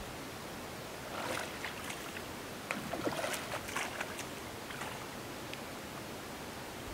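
Hooked fish splashing and thrashing at the water's surface while being played on a long fishing pole: a run of sharp splashes between about one and five seconds in, over a steady outdoor hiss.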